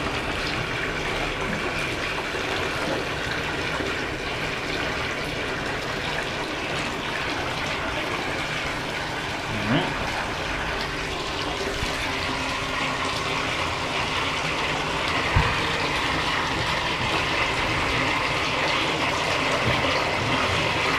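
Bathtub tap running steadily into a tub already full of water, an even rush of water. A single short knock about fifteen seconds in.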